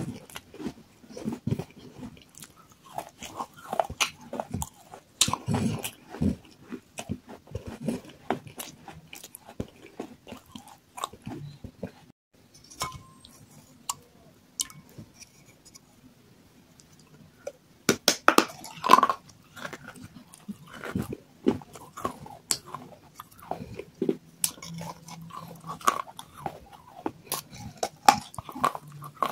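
Biting, crunching and chewing of water-soaked terracotta claypot pieces: a run of sharp cracks and grinding crunches, a quieter stretch about halfway through, then a loud cluster of bites about two-thirds in, followed by more chewing.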